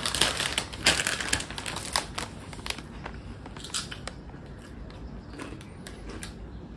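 Crisp potato chips being chewed, crunching loudly in a quick run for the first second and a half, then in sparser, quieter crunches.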